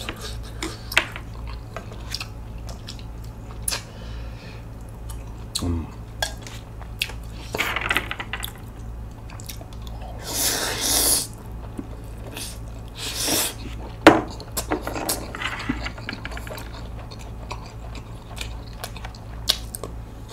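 Close-miked eating: noodles slurped in three long pulls in the middle, the longest about halfway through, between wet chewing and light clicks of wooden utensils against a bowl. The food is cold spicy mixed noodles with whelks. A low steady hum runs underneath.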